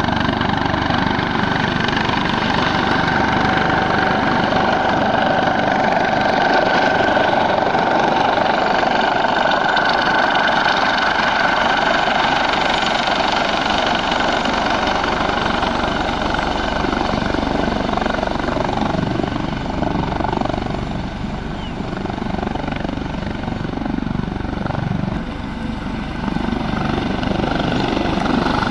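Eurocopter AS365 N3+ Dauphin helicopter flying low and hovering. Its turboshaft engines and fenestron tail rotor give a steady whine over the rotor noise, dipping slightly in loudness for a few seconds about twenty seconds in.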